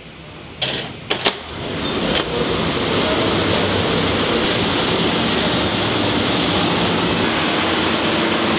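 A steel door's push-bar latch clacks a few times as the door is pushed open, then the steady, loud running noise of woodshop machinery and dust collection takes over for the rest of the time.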